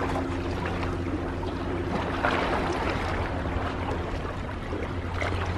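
Seawater washing and lapping around concrete tetrapods, over a steady low mechanical hum.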